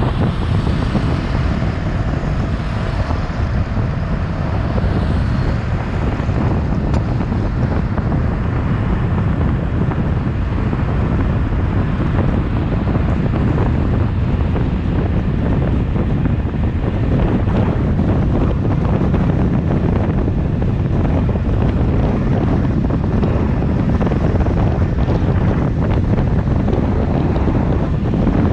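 Steady wind rushing over the microphone of a car moving at highway speed, mixed with the low rumble of road and tyre noise.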